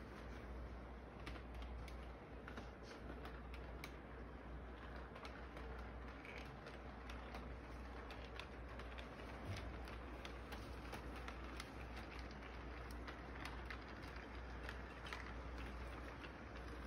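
Model electric train running on tabletop track: a steady run of irregular small clicks and rattles from its wheels and cars on the rails, over a steady low hum.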